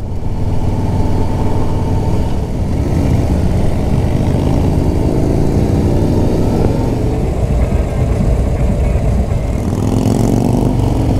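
An air-cooled Harley-Davidson V-twin motorcycle engine running under way, heard from the rider's seat. Its pitch rises and falls in places as the bike changes speed.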